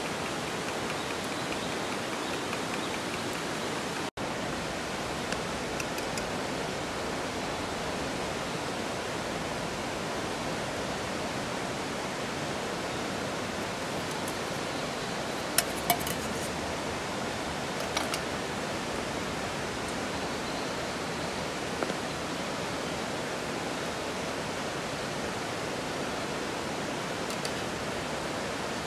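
Heavy rain falling steadily, a dense even hiss, cut off for an instant about four seconds in. A few sharp taps stand out over it in the second half.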